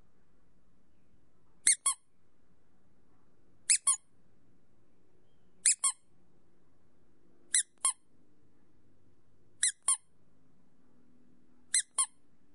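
Small rubber squeak toy squeezed fully, six times about every two seconds; each squeeze gives a quick pair of high squeaks, the second lower in pitch than the first.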